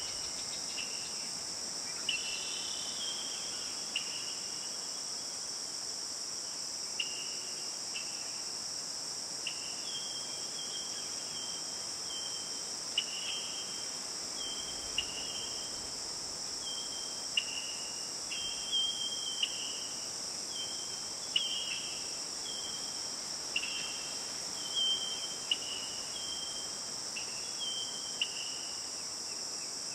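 Forest ambience: a steady, high insect chorus, over which a bird repeats short, clipped calls every second or two.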